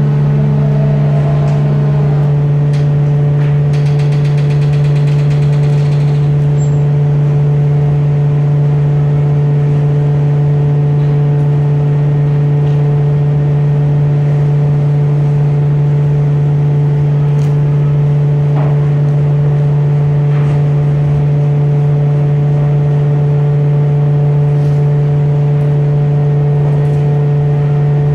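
Steady, loud drone of plywood-mill machinery: one low hum with overtones. A second, higher hum cuts out about two seconds in, and a faint rattle comes through around four to six seconds in.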